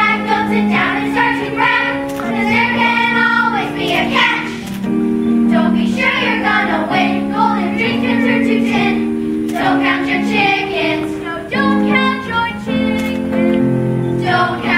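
A group of children singing a musical-theatre song together over instrumental accompaniment with steady held notes.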